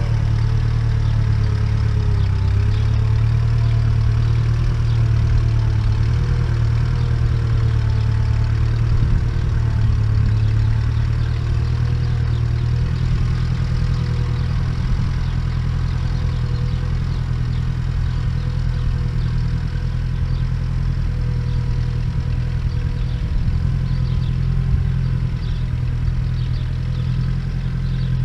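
1956 Case 300 tractor engine running steadily under load, pulling a moldboard plow through the ground.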